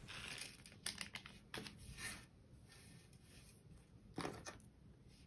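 Faint, scattered sticky clicks and crackles of hands handling a soft snow-hybrid slime, the strongest about one second in and about four seconds in.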